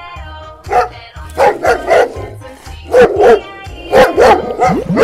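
Dog barking repeatedly in short barks over background music with a steady beat.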